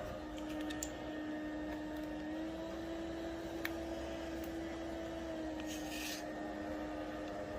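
Electric fan running with a steady motor hum whose pitch steps up slightly at the start and again after about two and a half seconds, then drops back a little about five and a half seconds in, as the motor changes speed in the fan's automatic speed mode. A few light clicks and a brief rustle about six seconds in.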